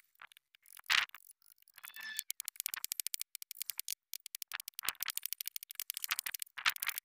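Small hammer tapping a metal punch into a wooden panel to stamp a dotted background texture: rapid light taps, several a second, after one louder knock about a second in.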